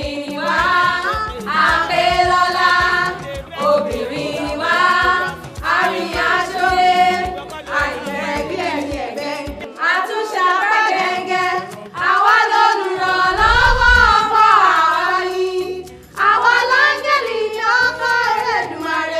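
A group of women singing together, in phrases a few seconds long with short breaks between them.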